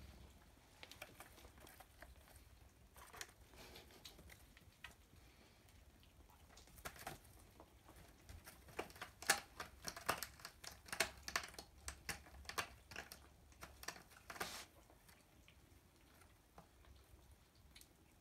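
Tabby kitten's claws scratching and picking at a corrugated cardboard scratching pad: faint, irregular rasps and clicks, thickest about halfway through.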